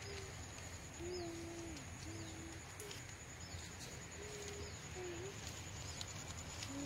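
Faint birdsong in open farmland: short high chirps repeating about once a second, with a low, drawn-out cooing note that comes and goes and wavers in pitch.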